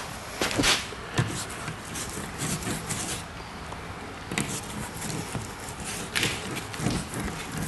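Paintbrush spreading thick, talc-thickened fibreglass resin over a plywood board: irregular swishing and dabbing strokes, with the brush now and then dipped into the tub of resin.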